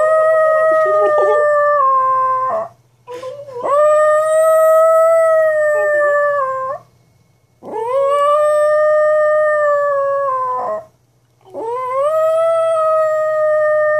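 Chihuahua howling: four long, drawn-out howls, each about three seconds, rising at the onset and sagging at the end, with short breaths between them.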